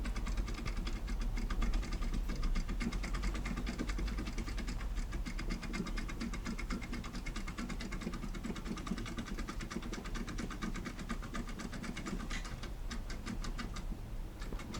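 Foil lockpick being worked and turned inside an Iseo R7 door cylinder, giving a fast, continuous light metallic clicking and rattling over a low steady hum.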